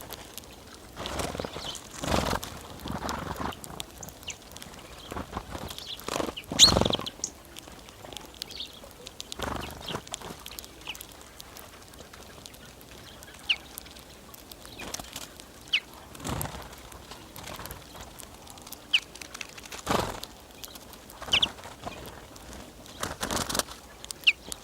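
Greenfinches feeding, with irregular bursts of wing flapping and rustling and a few short, sharp high chirps scattered through the second half.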